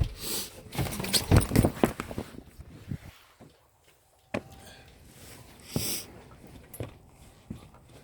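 Handling clatter: a quick run of clicks, knocks and rustling in the first two seconds, then a few separate sharp clicks and a short hiss.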